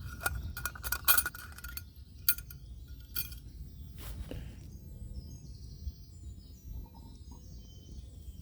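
Metal camp cookware being handled: a run of sharp clinks and knocks with a slight ringing tone over the first four seconds or so, then it goes quiet apart from faint background.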